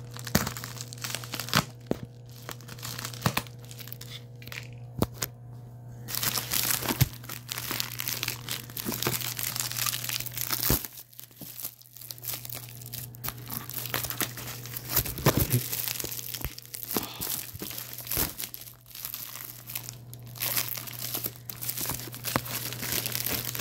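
Plastic mailer and bubble wrap being torn open and handled, crinkling and rustling. For the first six seconds there are only scattered clicks and rustles, then the crinkling turns dense, over a steady low hum.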